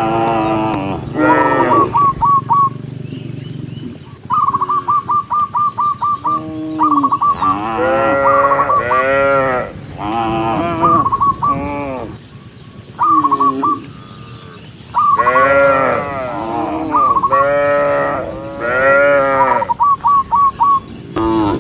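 Cattle mooing over and over, a dozen or so calls that rise and fall in pitch, several overlapping around the middle. Between the calls, runs of short, rapid high chirps come and go.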